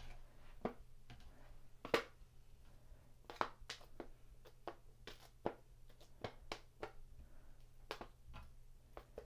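A series of faint, irregular taps and clicks as slices of pressed tofu are set down one by one on a baking pan.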